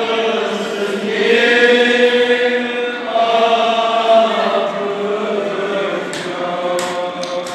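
Men's voices chanting a nawha, a Shia lament in Kashmiri, in long drawn-out held notes. Near the end a few sharp slaps sound.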